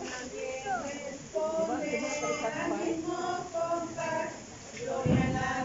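A group of men and women singing together, a traditional lullaby (arrullo) for the Christ child, with held notes. Near the end there is a louder, low-pitched burst close to the microphone.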